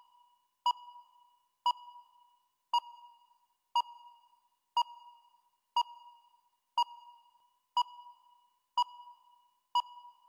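Quiz-show countdown timer beeping once a second: a short ringing ping, about ten in a row, evenly spaced. It marks the seconds of the contestant's timed answer period running out.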